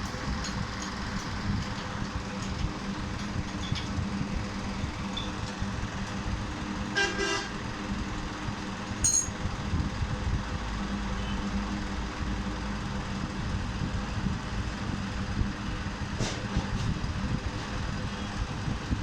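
Steady traffic rumble with a vehicle horn tooting briefly about seven seconds in, and a few light clicks and taps.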